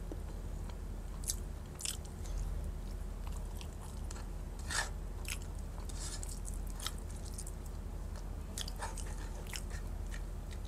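A person chewing and biting food close to a clip-on microphone, with irregular crisp crunches between mouthfuls.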